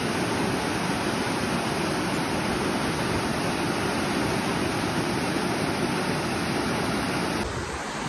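Steady rush of whitewater as the creek slides down Sliding Rock's sloping granite face and churns into the pool below. It turns a little quieter near the end.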